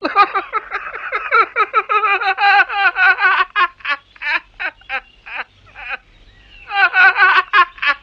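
Rapid, high chattering calls, several a second, with a short lull near the end before they start again.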